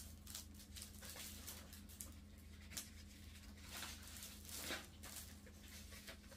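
Near silence: room tone with a steady low hum and a few faint scattered taps or rustles.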